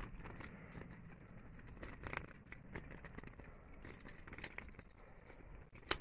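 Faint clicks and rattles of a small wood-and-wire bird trap cage being handled and opened by hand, with a sharper click just before the end.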